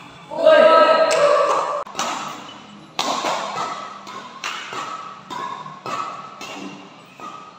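Badminton rackets striking a shuttlecock back and forth in a fast rally, a sharp smack about every second, each echoing briefly in the hall. It opens with a loud pitched sound lasting over a second.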